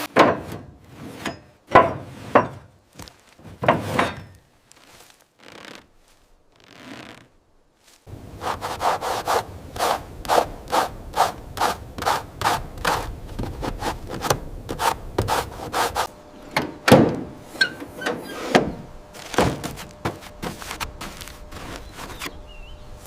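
Hand tool working a surface in repeated rubbing strokes: a few separate strokes, then a quick, even run of about two strokes a second from about eight seconds in.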